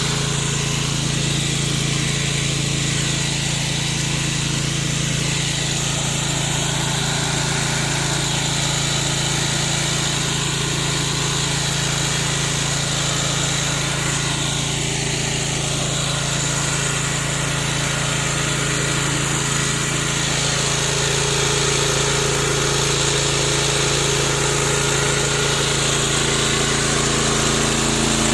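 A remote-controlled DIY lawn mower running steadily, with a constant even pitch, getting a little louder about two-thirds of the way through.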